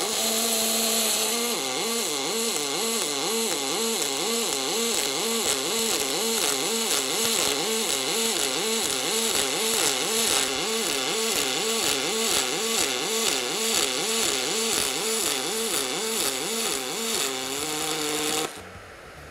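Pulsed MIG arc welding aluminium with AlMg wire, the superpulse switching between two energy levels: a hum that swings up and down in pitch over and over, with a crackling hiss above it. The arc cuts off about eighteen seconds in.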